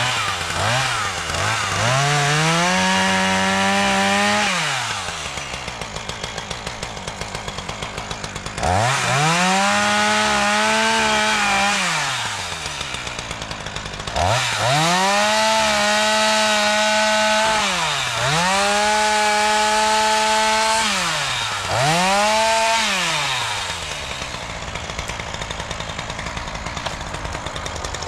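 Gas chainsaw's two-stroke engine revved to full throttle in about five bursts of two to four seconds each, dropping back to a rough idle between them and through the last few seconds, as it is used to cut down trees and brush.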